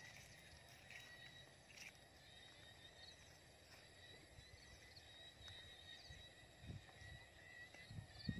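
Near silence in the open at dusk: faint steady insect song, with a few soft footsteps on a dirt track near the end.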